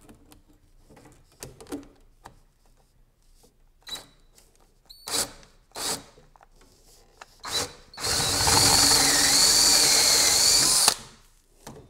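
Power drill with a larger twist bit boring into the wood of a chair seat, enlarging a pilot hole to take a new dowel. After a few brief spurts, it runs steadily for about three seconds near the end and stops abruptly.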